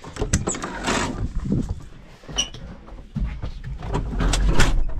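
Cab door of a John Deere 2755 tractor being opened and handled as someone climbs into the cab: scattered clunks, knocks and rustling, with a low rumble from about three seconds in.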